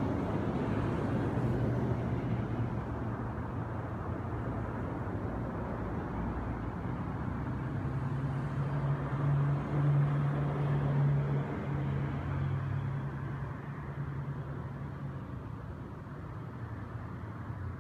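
An engine running steadily, its low hum growing louder about halfway through and then fading.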